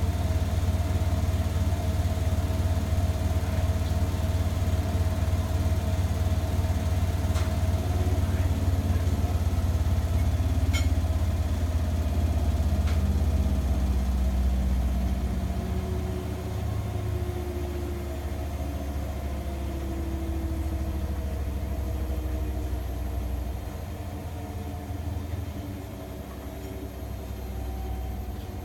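Front-loading washing machine running on its final rinse and spin: a steady low motor hum with a few faint clicks. It eases down in level about halfway through and again near the end.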